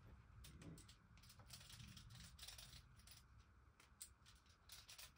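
Faint light clicks and scraping of a metal peeler being worked against a block of butter, in irregular short ticks.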